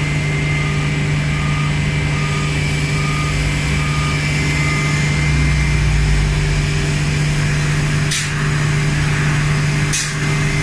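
Steady drone of shipyard machinery with a boom lift's warning alarm beeping about once every two-thirds of a second, which stops around five seconds in. Near the end there are three short hissing bursts of spray from a paint spray gun.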